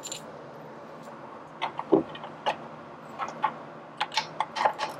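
Light clicks and taps of small metal parts being handled and fitted: the table-locking knob and bolt of a Ryobi BS904G band saw going into place under its table. The clicks are scattered irregularly, beginning a little way in.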